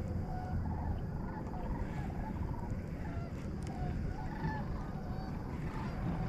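A flock of waterfowl calling, many short calls overlapping and repeating, over a low steady rumble.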